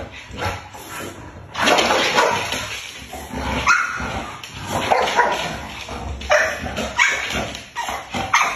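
Chow chow puppies barking and yipping while they play together: quieter for the first second and a half, then a run of short barks, about one every half second to a second.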